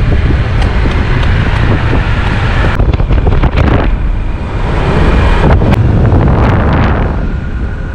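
Wind buffeting the microphone of a camera on a moving scooter, with the rumble of engine and tyres on the road underneath. The rush swells about five seconds in and eases near the end.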